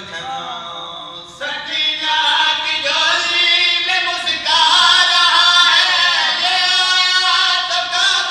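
Men singing an Urdu devotional qaseeda together over a microphone and loudspeakers. It starts with one voice, and several voices join in, louder, about a second and a half in.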